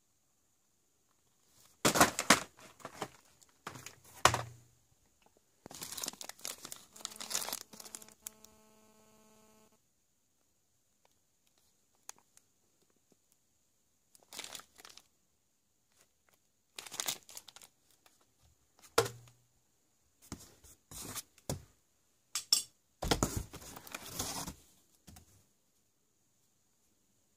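Plastic-wrapped fireworks packages being handled and shifted about in a cardboard box: crinkling of cellophane and plastic wrap in short irregular bursts, with a couple of dull thuds.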